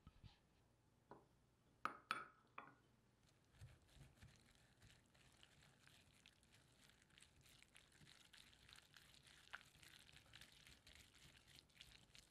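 Spatula stirring chopped onion, sweet corn and mayonnaise in a glass bowl: a faint, continuous wet scraping and squishing. A few sharp clinks come about two seconds in, before the stirring settles into a steady run.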